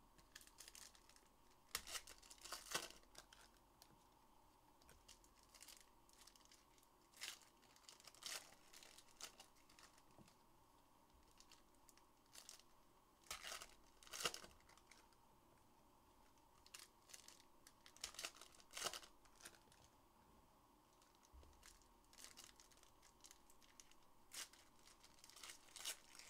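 Trading-card packaging being torn open and crinkled by hand: faint, short, scattered rustles and crackles, with a few louder clusters.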